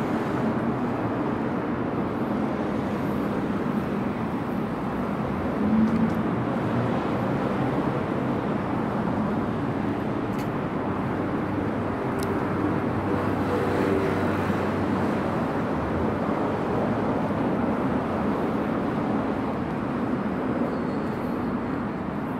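Steady city street noise of road traffic, with a brief louder swell about six seconds in.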